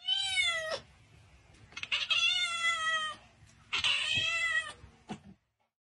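A cat meowing three times, each meow a drawn-out call that falls slightly in pitch, with short gaps between them.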